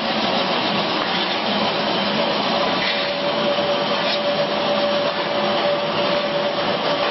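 Ring-die feed pellet mill running under load, its electric motor and die pressing feed into pellets in a steady, dense whirr. A steady whine runs through it and grows stronger about three seconds in.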